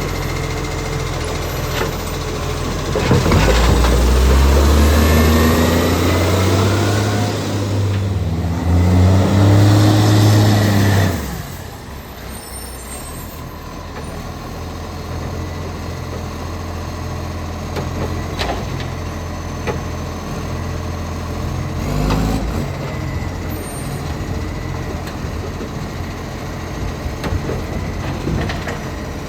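International Acco side-loader garbage truck's diesel engine, a truck with an exhaust leak, revving up for several seconds with its pitch rising and falling. About eleven seconds in it drops back to idle, and it briefly revs again later on.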